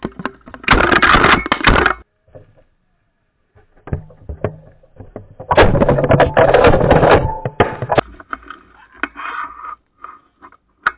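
Two loud shotgun shots about five seconds apart at a flushing pheasant, each a sharp blast that rings on for over a second, with small clicks and handling knocks in between.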